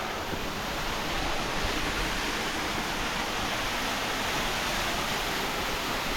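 Waterfall's water rushing and splashing over rock, a steady, even roar.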